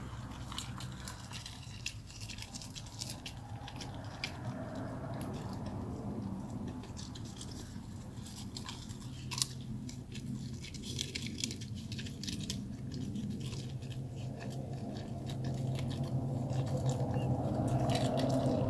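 A Samoyed chewing and crunching a sheet of dried seaweed (gim), with many small crisp crackles throughout, over a low steady hum; the chewing gets a little louder near the end.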